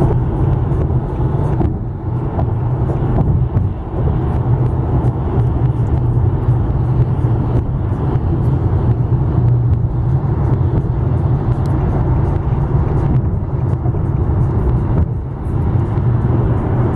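Car cabin road noise while cruising on a highway: a steady low rumble of tyres and engine, with a few brief dips.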